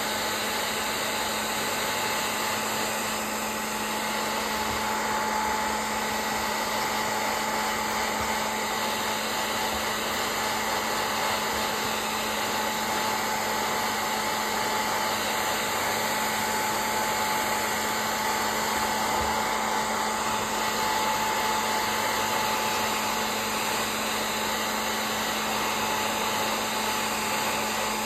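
Handheld hair dryer running steadily on a wet puppy's coat: an even rush of blown air with a steady motor hum underneath.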